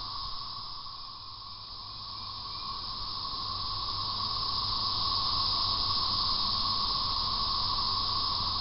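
Steady hissing drone of an insect chorus from the surrounding woods, with one band of sound high up and another lower down, dipping in the first two seconds and then swelling slowly louder.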